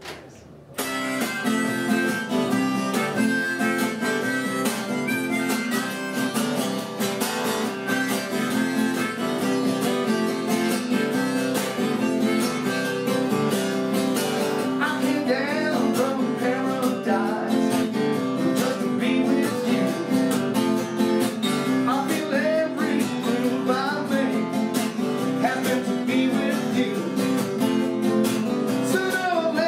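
Acoustic guitar strummed with a harmonica played in a neck rack, a folk-style solo harmonica-and-guitar tune that starts abruptly about a second in. The harmonica bends its notes more and more from the middle on.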